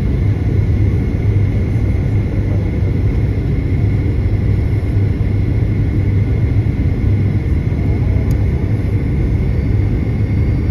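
Airliner cabin noise during descent: a steady low rumble of engines and airflow heard from inside the cabin, with a thin steady whine above it.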